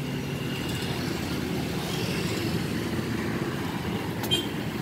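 A steady low engine rumble, with a single sharp clink about four seconds in.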